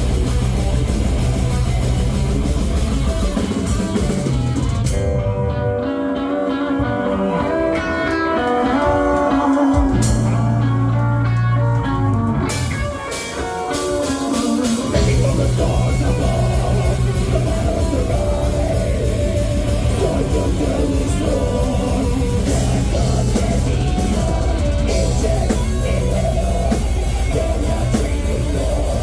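Live heavy metal band playing loud distorted electric guitars, bass and drums. A few seconds in the drums and bass drop out for a melodic guitar break, and the full band comes back in about halfway through.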